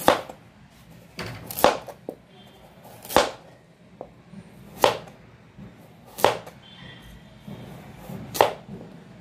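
Large kitchen knife slicing a peeled potato into rounds, each cut ending in a sharp knock of the blade on a plastic cutting board. About six cuts, one every second and a half or so.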